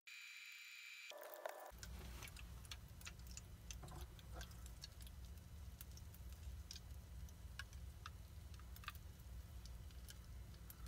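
Butter boiling in a small aluminum pot, giving faint, irregular pops and crackles as its water cooks off, over a low steady hum. The popping goes on until the water is gone and the clarified butter is done.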